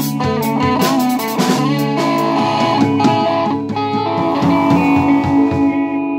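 Band playing a song: an electric guitar lead with bent, held notes over a drum kit, the drum hits mostly in the first half.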